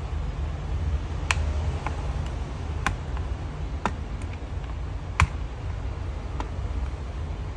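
Sharp, irregular plastic clicks and taps, about six, the loudest about five seconds in, as the plastic reading-lamp housing is pried apart at its snap clips. A steady low hum runs underneath.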